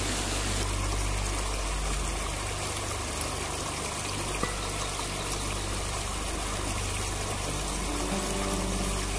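Rain-swollen seasonal stream rushing steadily over rocks and small drops, with a steady low hum underneath.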